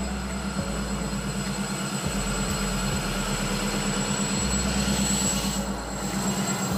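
Diesel locomotive engine running with a steady low drone and a thin high whine as the locomotive approaches and passes close beneath, growing louder until about five seconds in.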